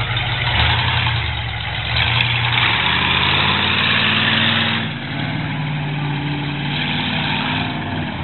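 Monster truck engine running loud, with revs rising about two seconds in and a heavy exhaust roar that eases near five seconds while the engine keeps running.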